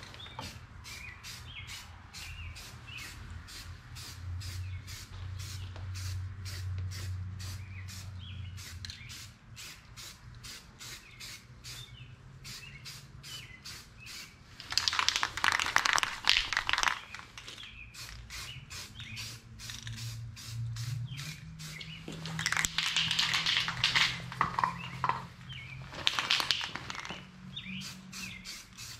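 Aerosol can of Rust-Oleum automotive primer hissing in three spray passes, the first about halfway through and the others near the end, each one to three seconds long. A fast, steady ticking and a low hum run underneath throughout.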